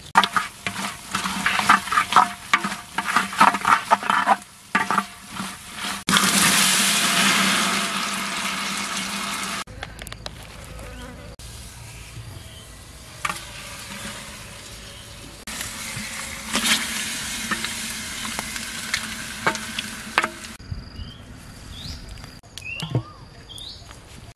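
A metal ladle scraping and clattering in quick strokes while stirring a clay cooking pot over a wood fire. About six seconds in, a loud steady hiss takes over for a few seconds. After that, a steady insect buzz continues, with a few short high chirps near the end.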